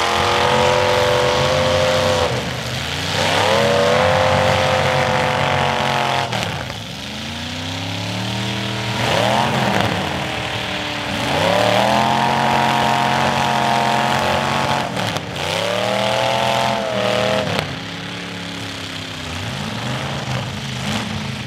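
Demolition derby car engines revving hard, the pitch climbing and falling in repeated surges a few seconds apart, with a couple of brief knocks.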